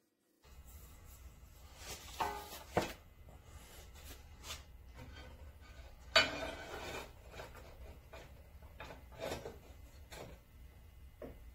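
Steel plate clanking against the metal frame of a horizontal band saw as it is fitted onto the saw as a work table: several sharp knocks and scrapes, the loudest about six seconds in. A steady low hum runs underneath.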